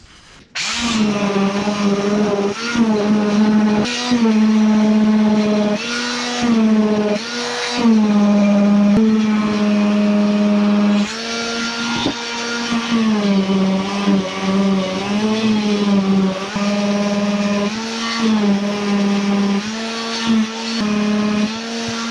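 Hand-held electric sander running against body filler on a sheet-steel cabinet panel. It starts about half a second in, and its motor hum drops and rises in pitch again and again as it works.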